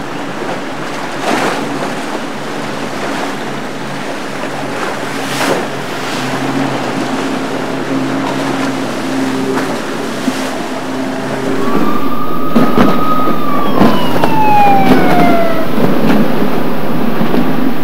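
Twin outboard engines hum steadily under rushing, choppy canal water. About two-thirds of the way through, the sound jumps louder into the rush of a fast boat's spray, and a single siren wail holds, then falls in pitch.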